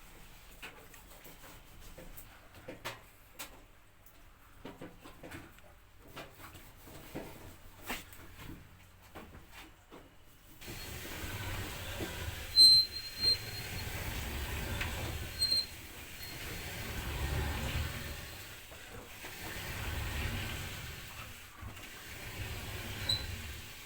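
Samsung front-load dryer starting up about ten seconds in and running with a steady whir, a low rumble that swells and fades about every three seconds, and a few short high squeaks soon after it starts. This is the noise of a dryer whose maintenance has been skipped.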